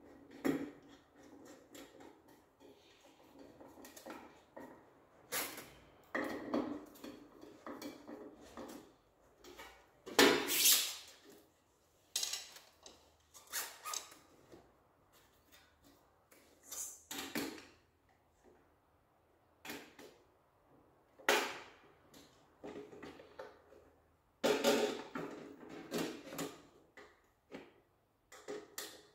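Irregular knocks, clicks and rattles of hard parts being handled, with a few louder clattering spells.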